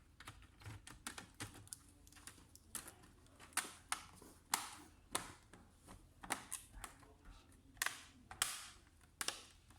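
Irregular sharp clicks and snaps of hard plastic as hands work on a laptop's case, about one or two a second, a few with a brief scraping tail.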